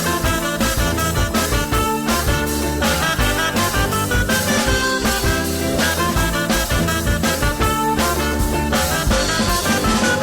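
Background music: an upbeat swing-style band number with a drum kit and a steady beat.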